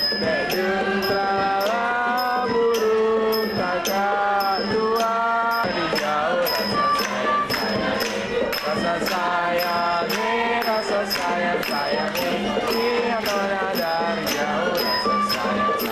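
Live traditional Southeast Asian ensemble music: bowed fiddles and a bamboo flute carry a sliding melody over a struck string instrument and drums. A bright metallic tick with a short ring keeps a steady beat about twice a second.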